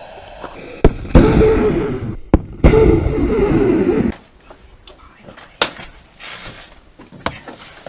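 Small nitrous-oxide bipropellant rocket motor lighting with a sharp pop and burning with a loud rushing noise for about a second. It fires again, heard a second time with another pop and about a second and a half of rushing. After that, only faint clicks and handling sounds.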